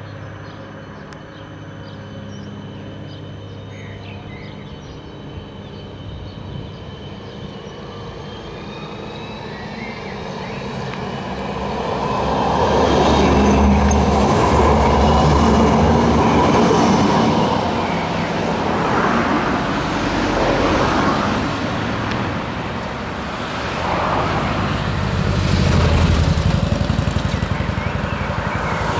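Electric low-floor tram approaching and passing close by, with a faint rising electric whine as it nears and then a loud rumble of steel wheels on the street rails, loudest about 12 to 17 seconds in. Road traffic follows, with cars and a motorcycle passing in swells.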